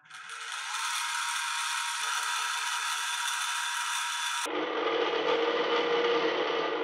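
Drill press running with a twist drill boring into the steel body of a PTRD anti-tank rifle: a steady whir of motor and cutting. About four and a half seconds in the sound changes abruptly and becomes lower and duller.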